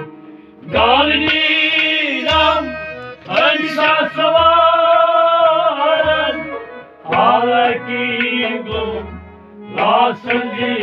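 Male voices singing a Kashmiri folk song in long phrases, accompanied by a tumbaknari, a clay goblet drum struck by hand.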